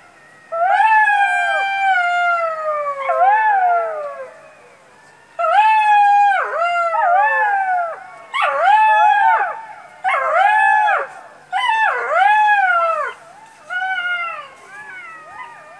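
A group of golden jackals howling together, several voices overlapping. One long wavering howl slides down in pitch, then comes a run of shorter wailing howls that rise and fall, with brief pauses between them.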